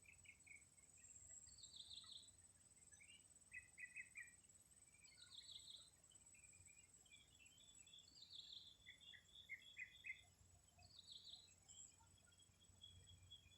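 Faint birdsong of a village morning: short bursts of chirps, one high falling phrase repeated about every three seconds amid lower chattering notes, over a steady high insect drone.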